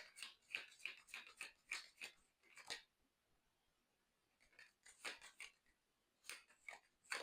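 Faint, crisp clicks and snaps of tarot cards being handled and shuffled: a quick run of them, a pause, then a few more near the end.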